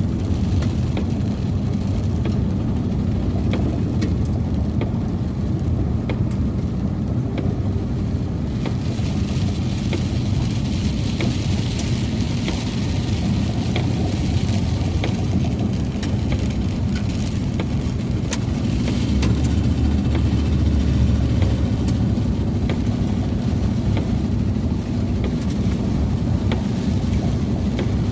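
Car road and engine noise heard inside the moving vehicle: a steady low rumble. About a third of the way in a hiss rises over it, and about two-thirds in a deeper drone swells for a few seconds.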